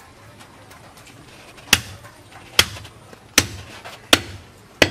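A large knife chopping a skinned goat leg on a wooden stump block: five hard, sharp chops, about one every 0.8 seconds, starting about two seconds in.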